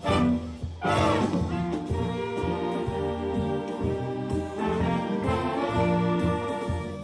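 Swing orchestra of brass and saxophones playing a jazz tune live, with held chords and a quick falling run about a second in.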